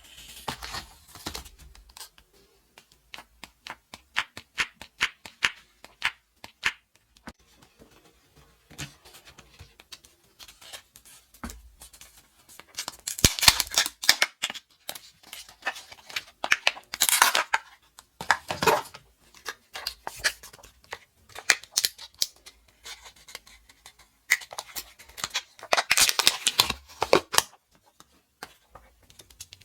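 Candy wrappers being torn open and crinkled by hand, with sharp clicks and taps of plastic packaging between several louder bursts of crinkling.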